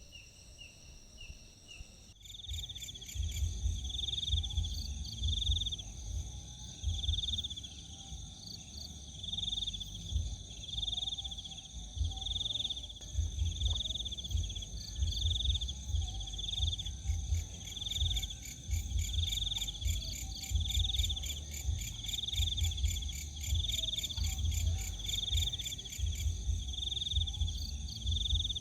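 Night chorus of crickets and other insects: a steady high trill with a separate chirp repeated about once a second. The chorus cuts in abruptly about two seconds in, over a low fluttering rumble.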